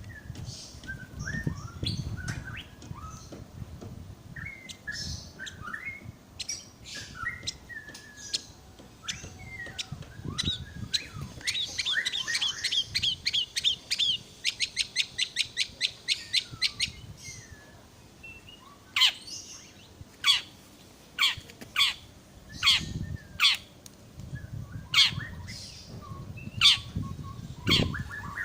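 A songbird singing. Short whistled chirps and warbles lead into a rapid trill of repeated notes, about five a second, in the middle. In the second half come loud, sharp, falling notes about once a second.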